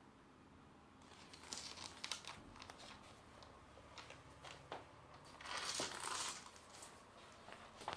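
Crinkling and rustling, like thin paper or plastic being crumpled, in irregular bursts that start about a second in and are loudest a little past the middle.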